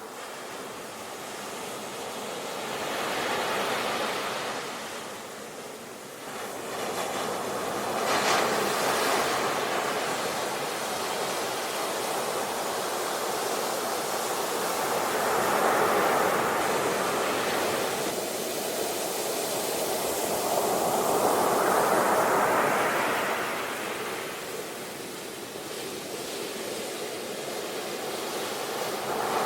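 Ocean waves breaking and washing in, the surf swelling and fading several times.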